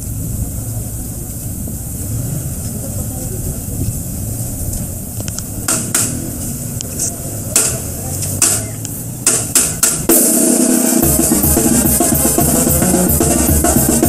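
Mexican brass banda marching. A few separate drum strokes sound for several seconds, then about ten seconds in the full band strikes up loudly: sousaphone, trumpets, snare drum, and bass drum with cymbal.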